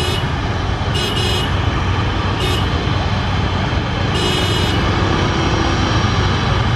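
Airbus A330's twin jet engines running at low taxi thrust, a steady low rumble, mixed with motorbikes on the road. Short high-pitched sounds recur about every one to two seconds.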